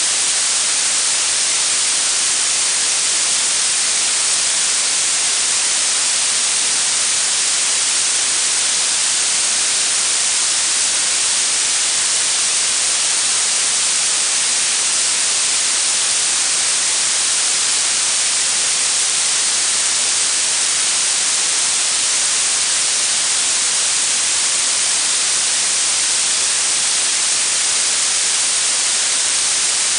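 Steady blue noise: an unchanging hiss weighted toward the high frequencies, with little low end.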